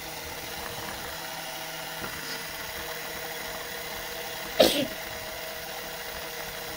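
Home-built Lego washing machine running: a Lego electric motor whirs steadily, turning a glass jar of soapy water on rubber-tyred wheels. About two-thirds of the way through comes one brief, loud vocal burst.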